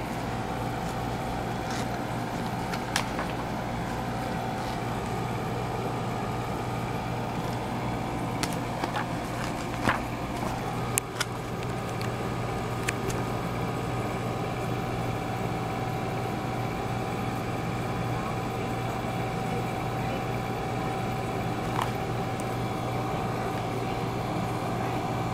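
Steady mechanical hum with a constant mid-pitched tone. A few short sharp clicks and rustles sound over it, the loudest about ten and eleven seconds in, as a yearbook's pages are handled.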